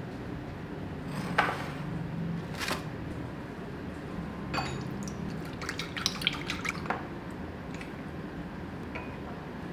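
Raw eggs cracked and dropped into a glass bowl, two sharp taps, then a fork beating the eggs, clicking quickly against the glass in a short run about six seconds in. A faint steady hum runs underneath.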